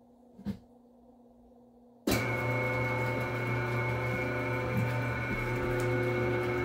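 An electric dough mixer switches on about two seconds in and runs steadily with a low hum and a higher whine, following a single knock.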